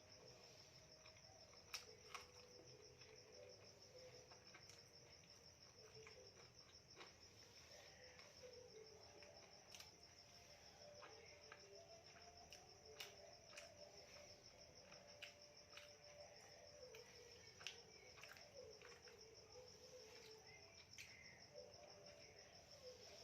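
Near silence with a faint, steady cricket trill throughout, and a few soft clicks and taps of someone eating a meal.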